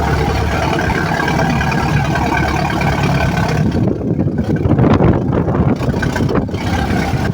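A vehicle engine running steadily. About four seconds in, the higher sounds drop away and an uneven low noise takes over.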